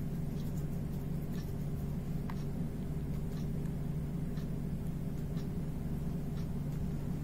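A steady low hum with faint, scattered small ticks over it.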